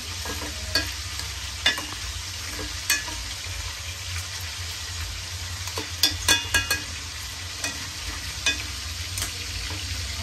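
Pork pieces frying in oil in a small stainless steel pot, a steady sizzle. Metal tongs clink against the pot as the pieces are turned, a dozen or so sharp ringing clicks with a quick run of them about six seconds in.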